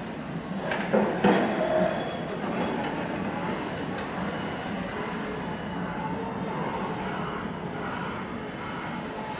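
Class 67 diesel locomotive running as it leads a train of coaches slowly round curved track, with a cluster of loud knocks about a second in, then steady running.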